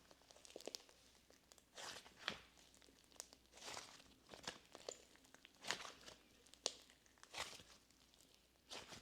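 Butter slime being squished and stretched by hand: faint, irregular sticky clicks and small pops, about a dozen across a few seconds.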